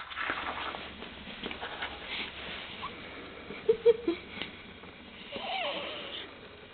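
A baby hiccuping: a short, sharp hiccup sound, doubled, about four seconds in. Near the end comes a brief vocal sound from the baby that rises and falls in pitch.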